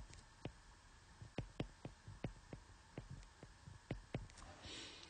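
Stylus tapping on a tablet touchscreen while hand-lettering a word: about a dozen light, irregular clicks, with a brief hiss near the end.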